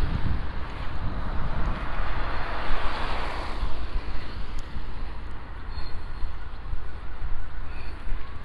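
Street traffic going by on a snowy road, one vehicle passing over the first few seconds, with a low wind rumble on the microphone throughout.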